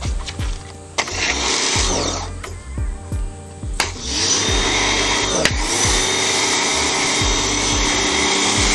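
Pressure washer spraying foam through a budget foam cannon onto a car: a short hiss of spray about a second in, then a steady hiss of spray from about four seconds in, with background music that has a steady beat.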